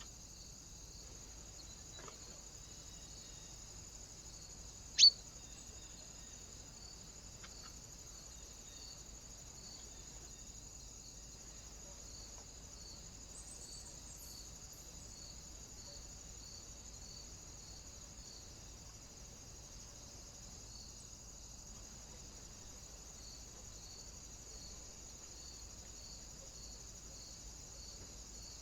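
A single sharp, high click about five seconds in, over a faint steady high-pitched hiss with a soft regular pulsing; two much fainter clicks fall shortly before and after it.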